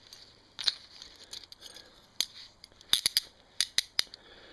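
Sharp metallic clicks from nickel-plated Smith & Wesson Model 1H hinged handcuffs as the key is turned in the lock to unlock the cuff: single clicks at first, then quick clusters of clicks about three seconds in and again near four.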